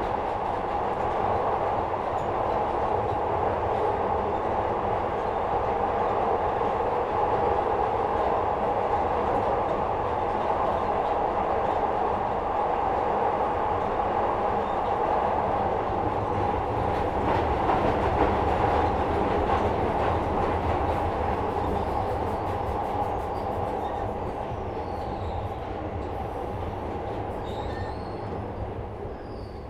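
Inside a 2nd-generation Glasgow Subway car (Metro-Cammell stock) running through the tunnel: steady running noise of the wheels on the rails. The noise eases off over the last few seconds, with a few faint high wheel squeals near the end.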